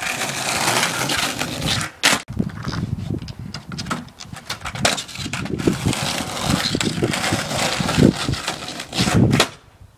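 Skateboard wheels rolling over rough asphalt, with repeated sharp clacks and knocks of the board hitting the ground and a wooden box top.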